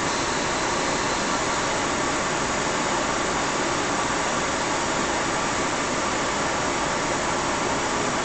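Steady, even rushing noise of cleanroom air handling around a photoresist coater track, unchanging throughout.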